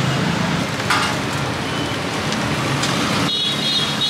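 Steady background noise of street traffic around an open-air food stall, with a short knock about a second in.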